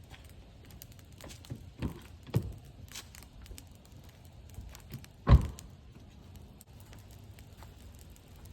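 Sticks and firewood being handled while building a campfire: scattered light clicks and knocks, and one heavy thud about five seconds in.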